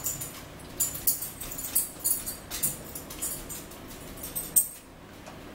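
Eating sounds close to the microphone: irregular crisp clicks and crinkles from chewing and from handling a paper-wrapped egg-and-spinach wrap.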